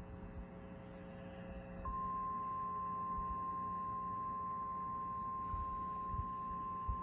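A lower steady tone with a faint hum gives way, about two seconds in, to a single steady high tone. The high tone is the 1050 Hz NOAA Weather Radio warning alarm tone that comes before a new alert.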